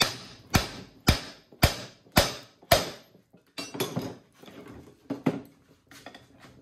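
Hammer blows on a Pitman arm puller to shock a seized Pitman arm off the steering box shaft: six hard strikes about two a second, followed by lighter knocks and clatter.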